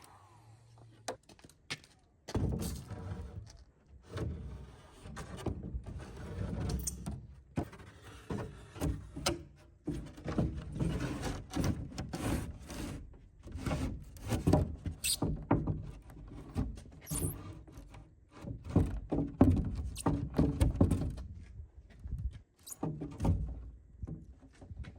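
A run of irregular thunks and knocks, like work with wood and tools on a building site, starting about two seconds in.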